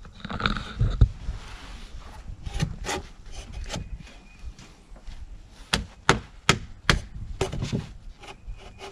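Wooden knocks as a sawn timber knee brace is shifted and set against the post and beam of a timber frame: scattered knocks, then a run of sharper ones in the second half.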